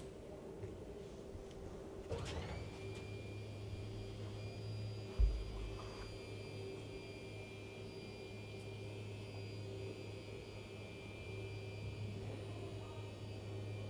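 Electric drive of a large RF-shielded sliding door (Comtest model 1756) starting up about two seconds in with a short rising whine, then running on as a steady motor hum with a thin high whine while the heavy door slides. A single low thump comes about five seconds in.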